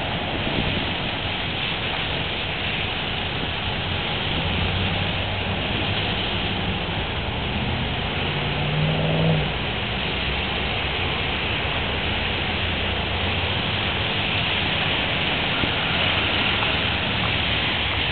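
Traffic passing on a rain-soaked road: a steady hiss of wet tyres and rain noise. About nine seconds in, a vehicle's engine hum swells briefly as it goes by.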